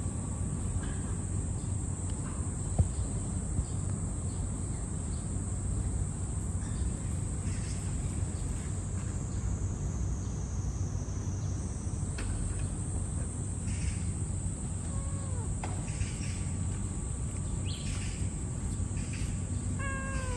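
Steady high-pitched drone of insects over a low background rumble, with a single click about three seconds in and a few short falling calls later on and again near the end.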